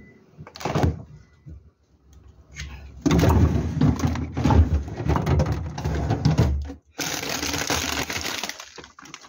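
Frozen food in plastic bags crinkling and crackling as hands rummage through a freezer drawer. It is quieter for the first few seconds, then much louder from about three seconds in.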